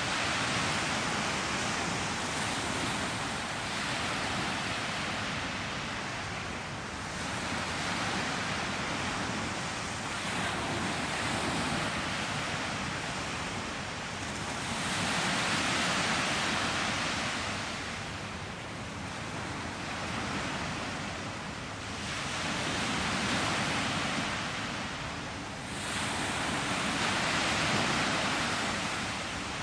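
Sea waves breaking on a beach, a hissing rush of surf that swells and fades every few seconds.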